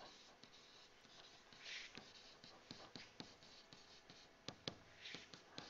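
Faint scratching and tapping of a stylus writing on a tablet screen, with a couple of sharper taps about four and a half seconds in.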